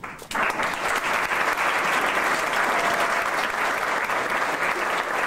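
A roomful of people applauding. The clapping breaks out suddenly about a third of a second in and keeps up steadily and loudly.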